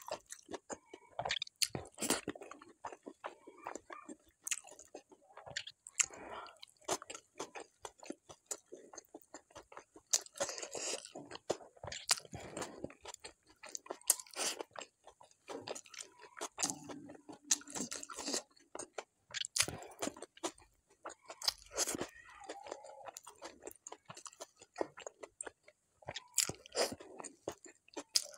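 Close-miked eating sounds: a person chewing mouthfuls of rice with a crispy fried topping, with many sharp, irregular crunches.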